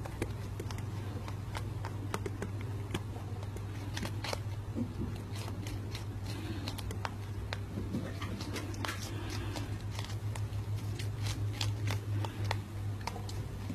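Lop-eared rabbit chewing and biting a hand-held strawberry: a quick, irregular run of small clicks and crunches over a steady low hum.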